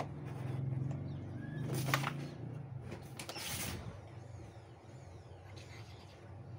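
Carrom pieces clack sharply on a wooden carrom board about three times, roughly two, three and three and a half seconds in, over a steady low hum.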